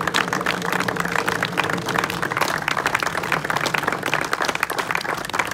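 A crowd applauding: dense, irregular clapping that goes on throughout, with a low hum underneath that fades out about halfway through.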